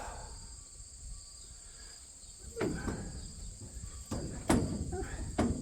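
Several sharp knocks, about four in the second half, from metal parts and tools being worked on a corn head while fitting stalk rolls, over steady high-pitched cricket chirping.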